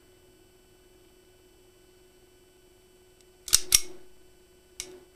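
Steel slide of an Astra Constable Sport .22 LR pistol (a deactivated gun) worked by hand: two sharp metal clicks in quick succession about three and a half seconds in, then a fainter click near the end. A faint steady hum is heard before the clicks.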